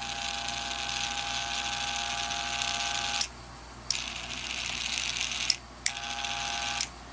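Treadmill incline motor running its open plastic reduction gearbox, a steady whine with gear hiss. It runs three times, about three seconds, then a second and a half, then a second, each start marked by a sharp click.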